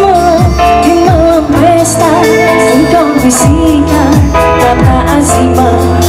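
A woman singing live into a microphone over a band of keyboard, electric guitar and hand drums, the drums giving repeated deep strokes that fall in pitch.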